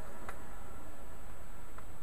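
Tempstar 3-ton heat pump outdoor unit running with a steady low rumble. Two faint ticks come through, one just after the start and one near the end.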